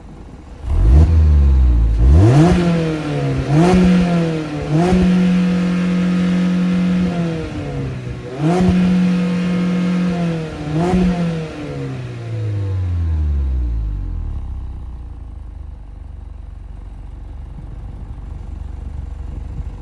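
2023 Mazda Miata ND2's 2.0-litre four-cylinder engine on its stock exhaust, revved at full throttle from idle against its 5500 rpm limiter. It makes a couple of short stabs and then several longer holds of two to three seconds at the limiter, dipping briefly between them. Then the revs slide back down and it settles to a steady idle for the last several seconds.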